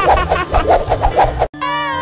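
Background music with a high-pitched voice in quick repeated syllables. About one and a half seconds in it cuts off abruptly, and a different tune with a gliding sung melody begins.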